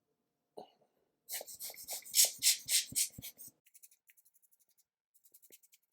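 Hands handling laptop parts during a battery swap: a click, then a quick run of scratchy strokes about four a second for two seconds, then fainter light ticks.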